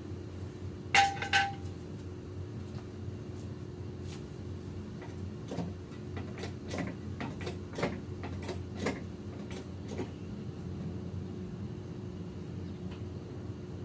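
A steel jack stand set down with a ringing metallic clank about a second in, struck twice, then a run of irregular clicks and knocks as it is worked into place under the car. A steady low hum runs underneath.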